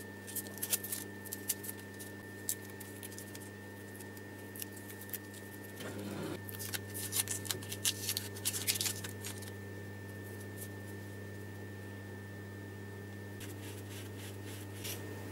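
Blue masking tape being peeled and crumpled off a wooden tool handle: crinkly crackling in three bouts, near the start, in the middle and near the end, over a low steady hum.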